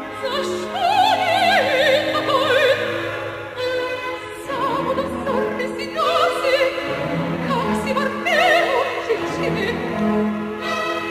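Operatic soprano singing with wide vibrato over an orchestra, in long high phrases with a short break about four seconds in.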